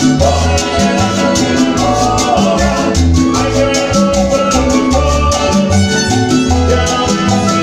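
Live Latin tropical dance band playing amplified: a steady bass line, keyboard, and congas and timbales keeping a quick even beat, with a singer on microphone.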